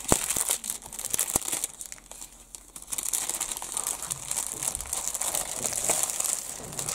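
Clear plastic bag around a model kit's instruction booklet crinkling and crackling as hands pull it open, a dense run of small crackles with a brief lull partway through.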